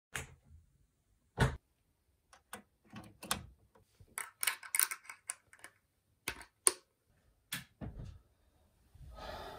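A series of sharp clicks and knocks from small metal parts being handled and fitted, irregular and unevenly spaced, with a short hiss near the end.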